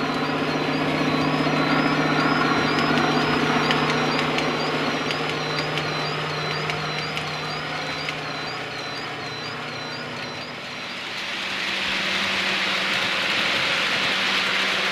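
DCC sound-fitted model diesel locomotives running on a model railway: a steady diesel engine drone from the decoder speaker over the running of the trains on the track. About eleven seconds in, a louder, broader hiss takes over.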